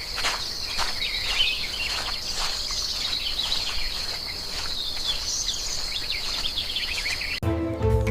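Nature ambience: a steady high insect trill with birds chirping over it, cutting off abruptly near the end.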